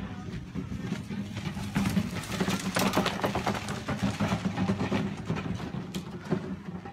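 A steady low mechanical hum, with dense crackling and rustling from about two seconds in that lasts a couple of seconds.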